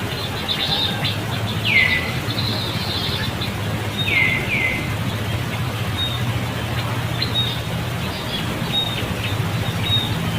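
Birds calling outdoors: a few high calls that sweep down in pitch and level off, two in quick succession about four seconds in, then short scattered chirps, over a steady low rumble of background noise.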